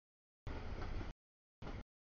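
Freight train of double-stack intermodal cars rolling past, a rumbling rush of wheels on rail. The audio cuts out to dead silence and back twice, in chunks under a second long.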